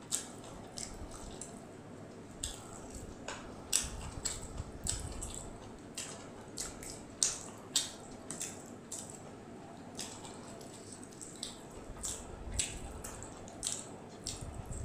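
Close-miked wet chewing and lip smacking: irregular mouth clicks and squishes as a person eats fried rice and chili chicken by hand.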